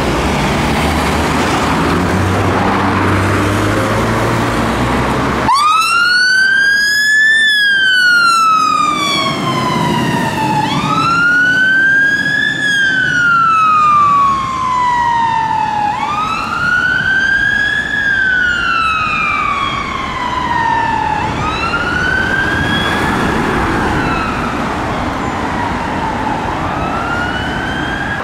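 Fire engine's siren switching on suddenly about five seconds in and sounding a slow wail: each cycle rises for about two seconds and falls for about three, five cycles in all, growing fainter toward the end. Before it, steady engine and road noise.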